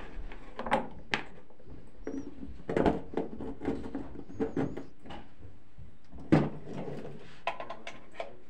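Irregular clicks, knocks and rustling from hands working at a front-loading washing machine and its detergent drawer, with one sharper knock about six seconds in.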